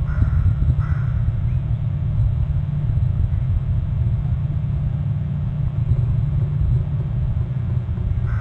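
Steady low outdoor rumble on the nest-camera microphone, with two short harsh bird calls about a second apart near the start.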